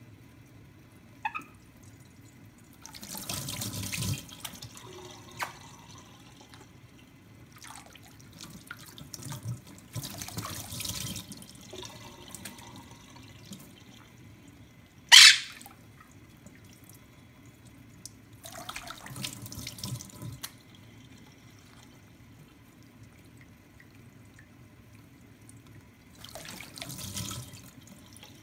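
Thin stream from a kitchen faucet running onto a plate, with a Quaker parrot bathing in it: its splashing comes in bursts of a second or two, four times. One brief sharp sound about halfway through is the loudest moment.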